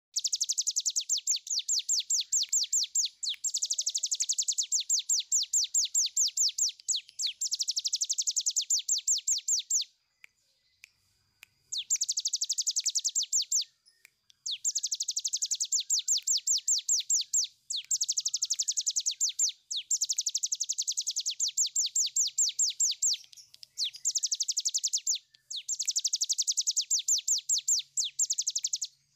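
Caged prinia known as cigun (ciblek gunung) singing its long 'ngebren' song: rapid rattling trills of evenly repeated high notes, about nine bouts of two to three seconds each with short pauses between, and a longer pause near the middle.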